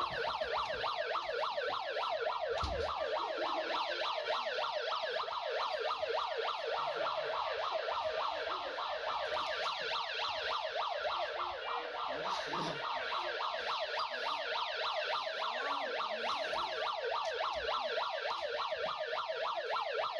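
Electronic siren-style alarm, sounding as a rapid run of rising wails one after another, used as a wake-up alarm for sleepers. It cuts in and out abruptly.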